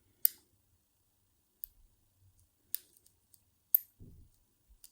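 Lock picking in an all-brass ABUS 65/40 padlock: a handful of sharp, irregularly spaced metallic clicks as a pick made from a hacksaw blade works the spool pins under tension, with a soft low bump about four seconds in.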